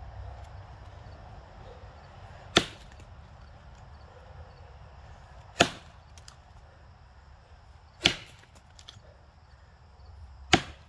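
Axe blows chopping into a large box elder log: four sharp strikes, roughly two and a half to three seconds apart.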